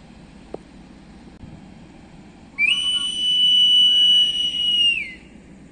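One long, steady, high-pitched blast of a hand whistle lasting about two and a half seconds, from railway staff at the platform: the departure signal for the waiting passenger train.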